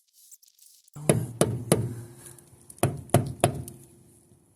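Two quick sets of three sharp knocks, each set leaving a short low ring.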